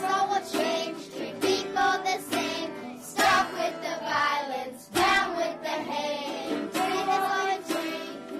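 Children singing a song over a strummed string accompaniment.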